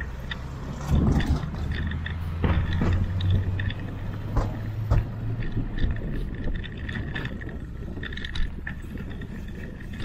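Bicycle rolling along a rough path, with a steady low tyre rumble and repeated knocks and rattles as it goes over bumps. Traffic on the road alongside can be heard passing in the first half.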